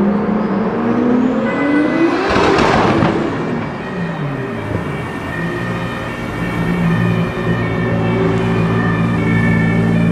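Toyota Supra MK4's inline-six engine as the car passes: the sound builds to a loud whoosh about two and a half seconds in, then the engine note drops in pitch as it moves away. Through the second half an engine holds a steady note.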